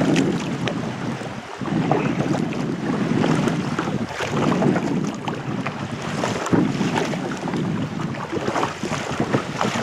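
Wind rumbling on the microphone, with water splashing and lapping against a kayak out on choppy water. The rumble drops away briefly three times, every couple of seconds.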